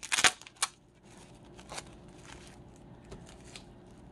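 Black plastic wrapping being pulled and torn open by hand from a small crystal: two sharp rips in the first second, then soft crinkling as it is unwrapped.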